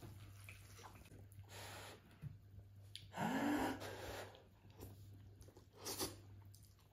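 People chewing noodles at the table. A louder breathy sound with a brief rising voice comes about three seconds in, and a short breathy sound comes near the end.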